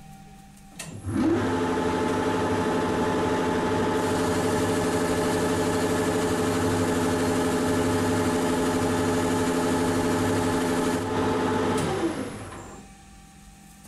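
Manual metal lathe switched on with a click: the spindle motor and gear drive spin up, run steadily with a pitched gear whine, then are switched off near the end and wind down to a stop.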